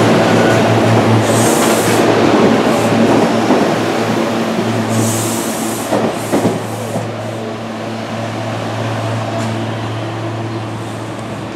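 SEPTA Regional Rail electric multiple-unit train pulling away from the platform: a steady motor hum over rolling wheel noise, fading as the train recedes. There are two short hisses, about one and a half and five seconds in, and a few wheel clacks about six seconds in as the last car goes by.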